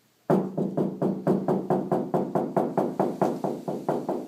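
Rapid, even knocking on the bare steel door panel of a 1956 VW Beetle, about five to six knocks a second. Each knock rings hollow because the door has no sound-deadening mat.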